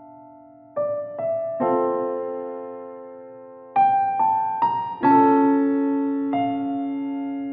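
Background music: slow electric piano playing sustained notes and chords, each struck and left to fade.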